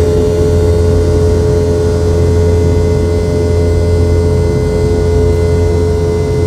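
The Boeing 717's rear-mounted Rolls-Royce BR715 turbofan engines, heard from inside the cabin, running steadily: a deep rumble under a constant whine that neither rises nor falls.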